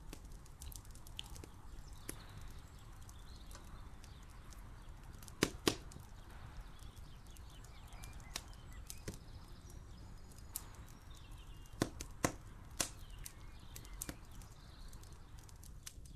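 A steady low rumble with a series of sharp clicks or knocks over it. The loudest come as a pair about five and a half seconds in and as three about twelve to thirteen seconds in.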